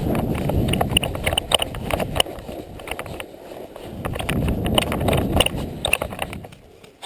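Footsteps crunching through dry grass and leaves, with gear rattling in irregular clicks, over a low rumble of wind and handling on a body-worn camera's microphone as the wearer moves on foot.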